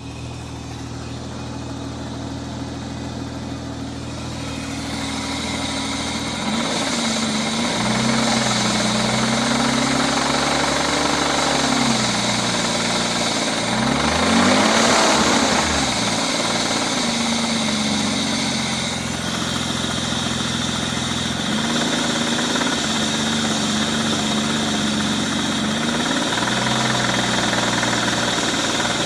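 BMW M52 straight-six engine running, its speed lifted and settled several times with a quick rev and drop about halfway through, over a knock whose source the owner cannot find.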